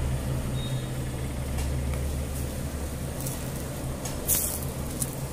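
Metal spatula scraping and tapping on a large iron tawa as parathas are turned, with one short, sharper scrape about four seconds in, over a steady low rumble.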